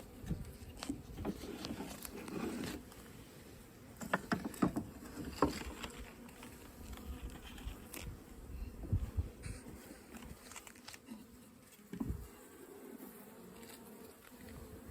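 Russian honeybees buzzing around an opened nucleus hive, with scattered clicks and knocks.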